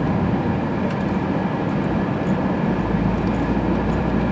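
Steady road and engine noise inside a moving car's cabin, with a low hum that firms up about two-thirds of the way through.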